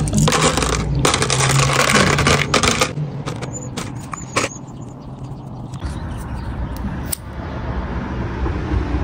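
Small plastic birthday candles rattling, clicking and rustling as they are handled and pushed one by one into a frosted cake. A dense spell of rustling and clicks comes first, then sparser clicks.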